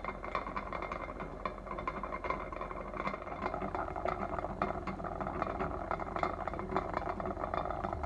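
Glass jar and its metal-clip lid rattling and clinking against the bottom of an enamelled pot as the water heats to sterilise them, a dense run of quick ticks over a low steady hum.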